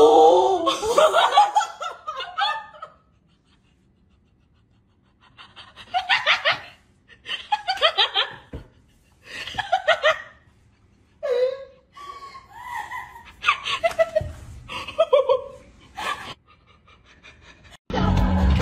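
A person laughing in repeated bouts of giggles, which break off for a couple of seconds and then start up again.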